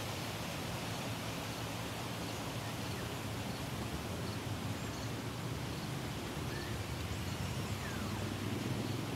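Steady outdoor background hiss in the woods, with faint high ticks about twice a second through the middle and a couple of faint short chirps near the end.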